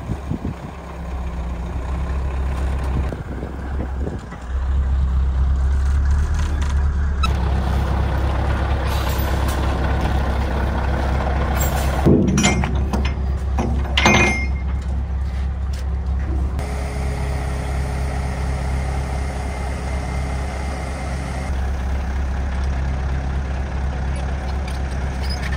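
Heavy diesel engines of a truck and a mobile crane running steadily, with two sharp knocks about halfway through.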